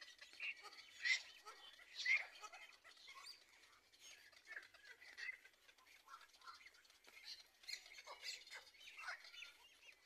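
Black-crowned night heron nestling squawking in the nest: a series of short, high calls, the two loudest about one and two seconds in, then fainter calls.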